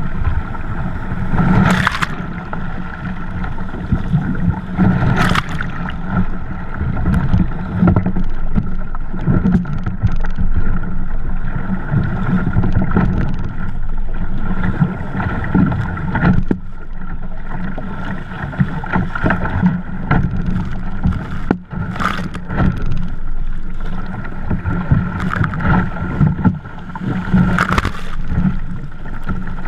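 Ocean surf breaking and water sloshing and splashing against a kayak and the camera as it is pushed and paddled out through the waves, with loud splashes about two and five seconds in and again near the end as waves break over the bow.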